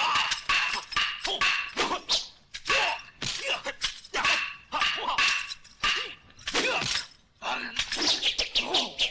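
Wooden fighting weapons, a three-section staff against nunchaku and tonfa, clacking together in quick exchanges of blows, with whooshes and short shouts. After a brief lull near the end comes a fast run of clacks.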